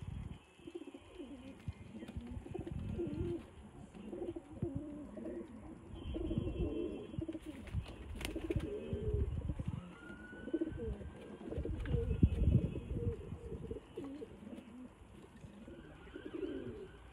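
Domestic pigeons cooing over and over, a low, wavering warble from several birds overlapping. A sharp click sounds about eight seconds in.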